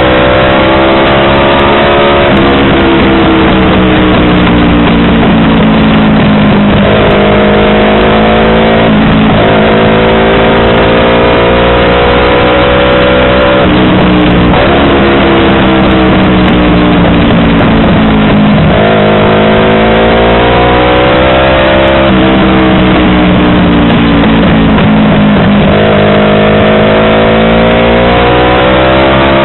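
Yamaha R25's 250 cc parallel-twin engine through a WRX aftermarket exhaust. Its pitch jumps up sharply about five times, and after each jump it sinks slowly over several seconds.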